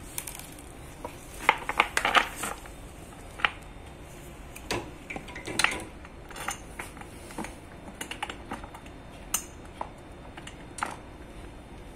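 Irregular clicks and light knocks as an elliptical trainer's pedal and its bolts are handled and set against the metal pedal arm, loudest and most frequent in the first few seconds.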